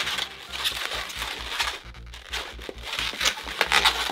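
Latex 160 twisting balloons squeaking and rubbing in the hands as they are folded, squeezed and twisted into small flower petals, in short irregular squeaks and rustles. Background music plays underneath.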